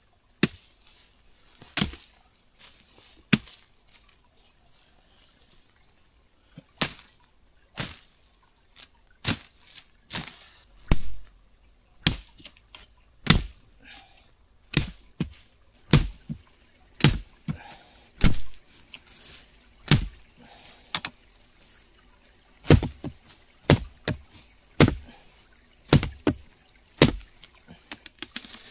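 Machete chopping at saplings and brush: about twenty sharp strikes, a few at first, then after a short pause roughly one a second.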